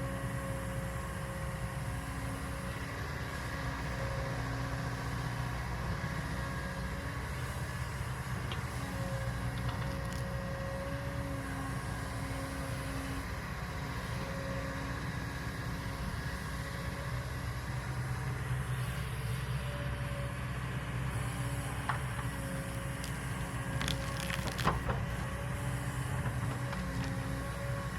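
Kobelco 220 excavator's diesel engine running steadily under work, with a whine that comes and goes. A few sharp clanks near the end.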